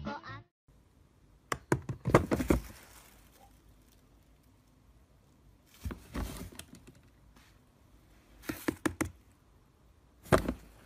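Hollow plastic knocks and clatter from a swing-top bin lid being pushed and flapping, in four short bouts with near silence between them.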